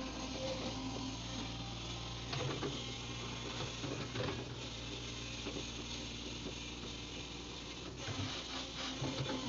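Excavator's diesel engine running, a steady low hum with an irregular clicking, rattling clatter over it.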